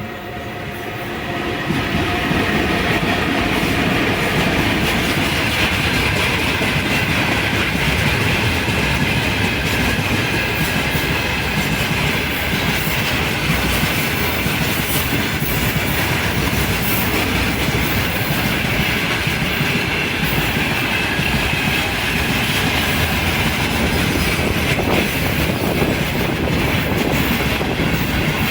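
Freight train hauled by a VL11 electric locomotive passing close by: a steady loud rumble and rattle of wagon wheels on the rails, building up over the first couple of seconds.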